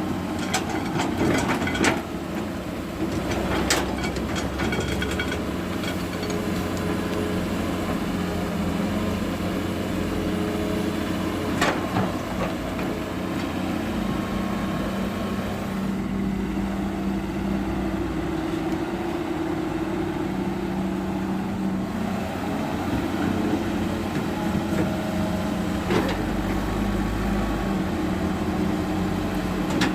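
Heavy diesel earthmoving machinery running steadily, with a few sharp knocks.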